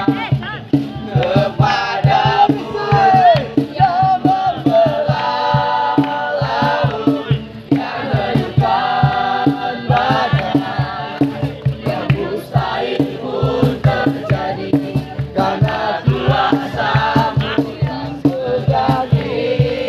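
A group of voices singing a Christian worship song together, with instrumental backing and a steady beat.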